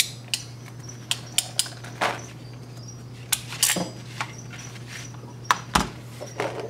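Hand crimping tool clamping a metal rivet and wire connector onto heat tape: a string of sharp, irregular metallic clicks and snaps, a dozen or so, as the tool closes and the tape and wire are handled.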